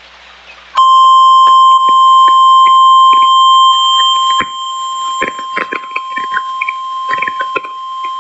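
NOAA Weather Radio 1050 Hz warning alarm tone: a single steady tone starting about a second in and holding without a break, sounded as the weekly test of the alarm receivers. It drops in level about halfway through, with crackling clicks over it.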